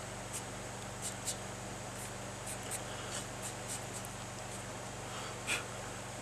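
Faint, scattered taps and light scratching of fingers on a cast-iron engine block as magnetic powder is worked over a crack, over a steady low electrical hum. A short breath about five and a half seconds in.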